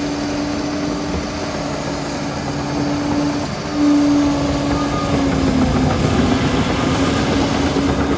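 Liebherr PR 746 crawler dozer running with a steady whine over a rough mechanical rumble. The whine breaks off briefly about three and a half seconds in, then returns and sags slightly in pitch, and the machine gets louder from about four seconds in.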